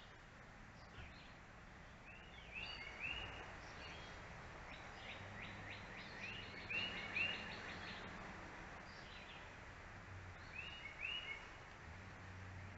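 Small birds chirping, short high notes in quick groups of two or three repeated every few seconds, with a rapid trill in the middle. Underneath runs a faint low hum.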